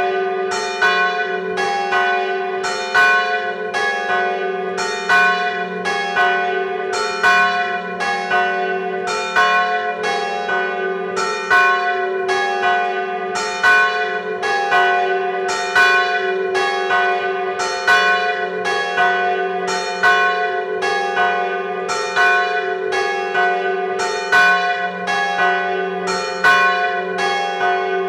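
Church bells ringing a glas, a death knell: the large bell swings in full peal while smaller bells are struck with it, about two strokes a second over a steady ringing hum.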